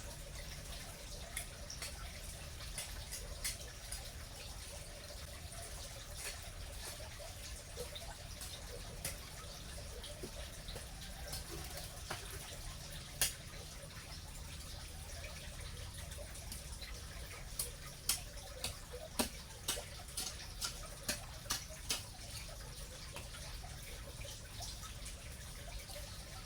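Grass and weeds being pulled up by hand: scattered small snaps and crackles that come closer together about two-thirds of the way in, over a low steady rumble.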